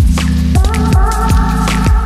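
Electronic music with a heavy bass and a steady drum beat; a held synth chord comes in about half a second in.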